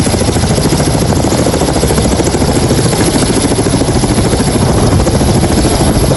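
Helicopter landing close by: loud, steady rotor and turbine noise with a rapid blade chop, its downwash buffeting the microphone.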